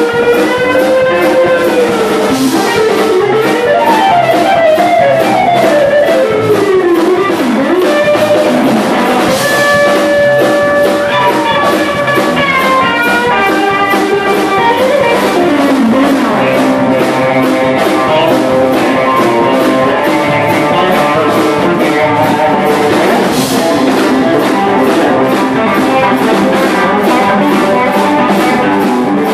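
Blues-rock instrumental break: electric guitar solo with string bends and long held notes over a steady drum beat.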